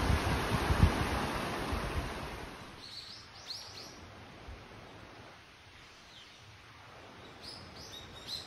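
Mountain stream rushing over rocks, with low gusts of wind on the microphone, for the first two seconds or so. It then drops to a quiet forest background in which small birds give short chirps, a few about three seconds in and more near the end.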